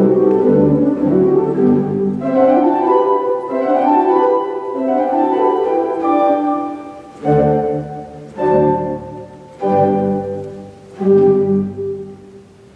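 Pipe organ playing a fast scherzo-toccatina passage, then four short separate chords about a second apart, each fading into the church's reverberation, the last closing the piece.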